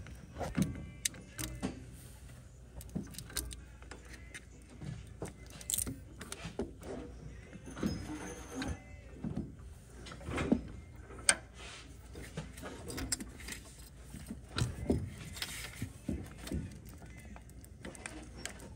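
Irregular metallic clinks, knocks and scrapes of hand work as the head is worked off a Cummins ISX fuel pump, with a few louder knocks here and there.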